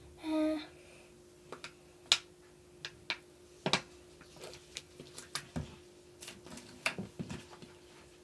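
Sticky clicks and small pops of wet slime being kneaded and stretched by hand, scattered irregularly, over a faint steady hum. A short pitched squeak comes about half a second in.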